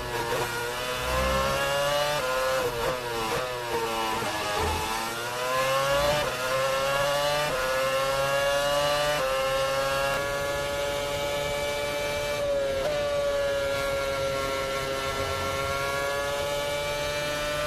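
Formula 1 car engine heard onboard at racing speed: revs drop in steps through downshifts in the first few seconds, then climb through the gears and hold high and steady, with one short dip about two-thirds of the way through.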